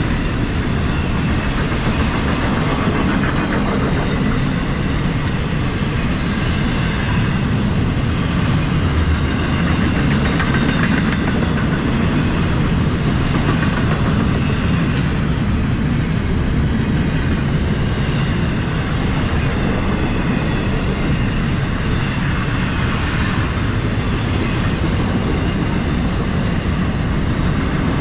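Florida East Coast Railway intermodal freight train, double-stack container cars and trailer flatcars, rolling past: loud, steady noise of steel wheels running on the rails.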